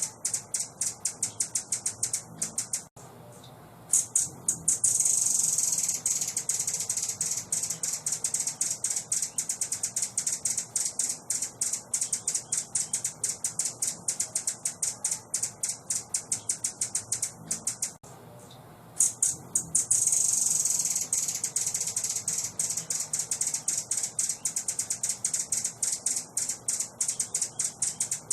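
A songbird's training-song recording: a fast run of high, dry ticking notes, about four a second, broken twice by a short pause, each pause followed by a denser buzzy trill.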